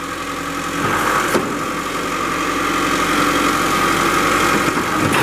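Perkins diesel engine of a Prowler P55 piggyback forklift running as the hydraulics work the outriggers. It picks up about a second in, with a steady whine over the engine.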